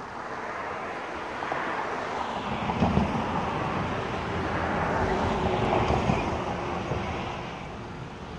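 A vehicle passing by: its road noise swells over a few seconds, holds, then fades away, with a low thump near the loudest point.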